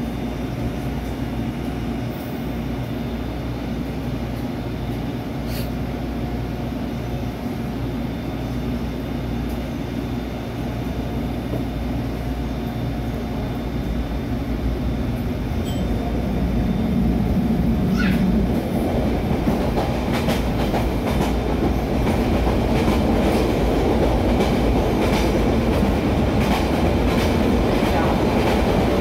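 Inside a SEPTA Route 101 Kawasaki light rail trolley: a steady hum with a faint whine while the car stands at the platform. A little over halfway through the motors build and it pulls away, growing louder, with the wheels clicking over rail joints as it picks up speed.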